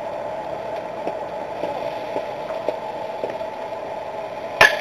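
Steady ballfield background noise, then a single sharp crack near the end as the pitched baseball reaches the plate.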